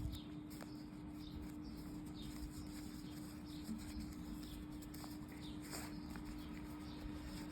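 Quiet handling and creasing of origami paper as a fold is made, with scattered faint clicks. A steady low hum and faint, repeated short high chirps sound in the background.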